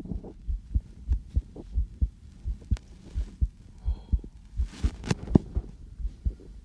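A person's own heartbeat heard through a stethoscope: quick, regular low thumps in a steady rhythm, a little fast after he has just come in from outside. A few sharper clicks from handling the stethoscope come in around the middle and later.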